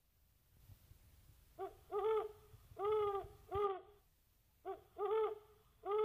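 An owl hooting: two phrases, each a short lead note followed by three longer hoots that rise slightly and fall in pitch.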